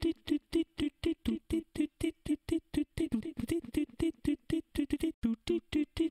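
Background music: an even run of short staccato notes, about four or five a second, at much the same pitch.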